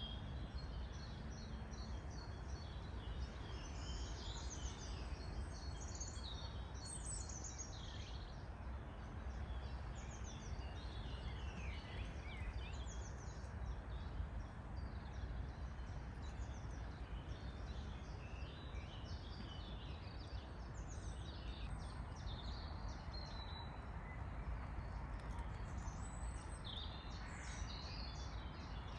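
Woodland birdsong: several birds chirping and trilling, overlapping, over a steady low background rumble.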